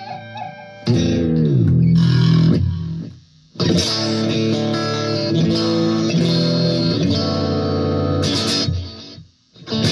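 Electric guitar with single-coil pickups played through a compressor pedal into a small amp. About a second in, a low chord sags down in pitch. After a brief gap, a long run of ringing chords follows, with a few short stabs near the end.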